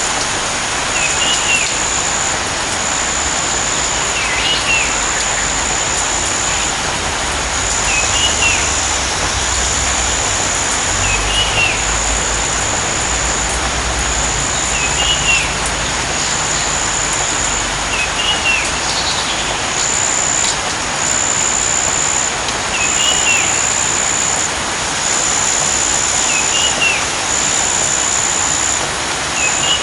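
Steady rain hissing, with a bird repeating a short chirp every three to four seconds and a high thin tone pulsing on and off.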